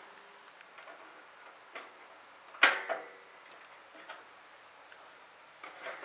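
Thin baling wire being worked loose from a mower-deck tension spring, giving a few faint metallic ticks and one sharp click about two and a half seconds in.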